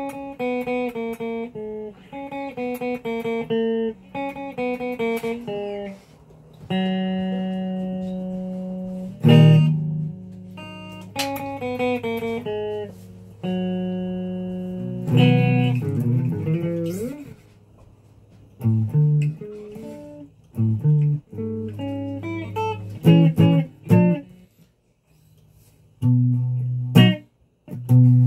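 Solid-body electric guitar played in single notes: short melodic runs and several long held notes, a slide in pitch about halfway through, and short sharp stabs near the end, with brief pauses between phrases.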